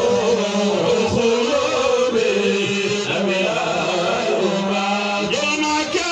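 Male voices chanting an Islamic devotional song into a microphone, a lead voice bending long held notes over a steady lower held note.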